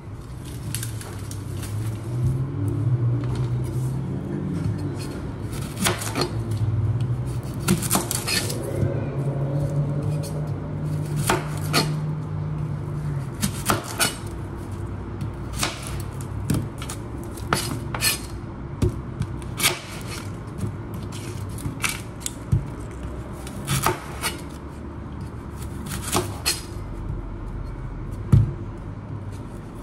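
Kitchen knife cutting and trimming brown onions on a plastic cutting board: irregular sharp knocks of the blade against the board, about one every second or two. A low hum sits underneath through the first half.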